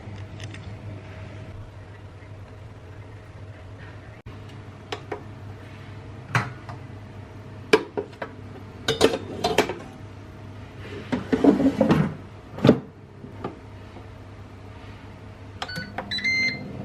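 Kitchen food-prep clatter: scattered sharp knocks and clinks of cutting fish and handling a metal bowl. Near the end come a few short electronic beeps from an air fryer's control panel as it is set, over a steady low appliance hum.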